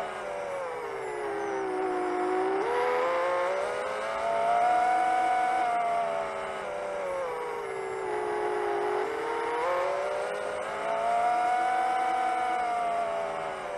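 Motors of a 7-inch long-range FPV quadcopter whining in flight, the pitch swelling up and falling back in slow waves every four to five seconds.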